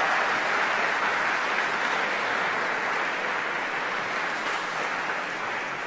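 A large audience applauding: steady, dense clapping that slowly dies down near the end.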